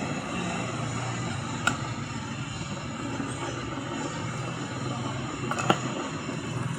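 Two sharp clicks of metal parts or tools being handled while assembling a pedestal fan, about two and six seconds in, over a steady background hum.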